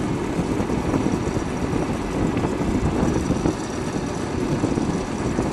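Wind rushing over the microphone with the steady drone of a motorcycle riding at speed on an open road.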